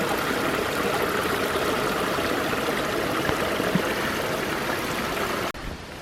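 Small forest stream running over rocks, a steady rush of water that cuts off abruptly shortly before the end.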